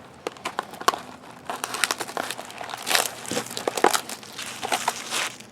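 Plastic wrapping on a Topps jumbo baseball card box and packs being torn open and crinkled by hand, a run of irregular crackles and sharp snaps.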